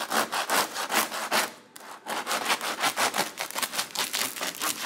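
A knife sawing back and forth through the crust of a freshly baked sourdough loaf. It is a quick, even run of scratchy strokes, about four or five a second, with a short pause about two seconds in.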